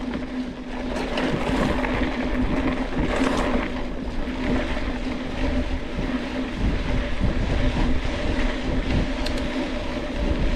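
Mountain bike riding along a dirt trail: tyre and drivetrain rolling noise with wind on the microphone and a steady low hum, the low rumble getting heavier about six seconds in.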